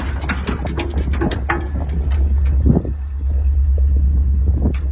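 Low steady rumble of a pickup truck, heard from its open bed, with a quick run of sharp clicks and rattles over the first two and a half seconds and one more click near the end.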